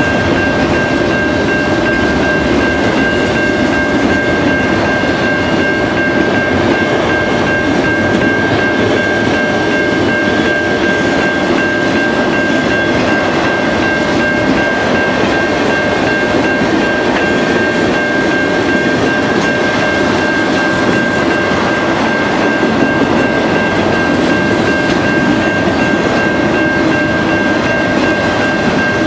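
Freight train of autorack cars rolling steadily past, its wheels running over the rails, with a steady high-pitched tone held throughout.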